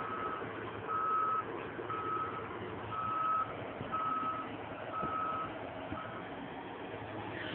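Caterpillar 315 excavator's travel alarm beeping, one steady tone about once a second over steady machine noise. The beeping stops about six seconds in, which signals the machine has stopped travelling.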